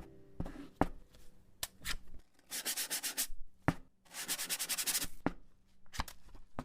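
Scattered sharp clicks and taps, then two short bursts of rapid rasping strokes, about ten a second, a little past halfway through.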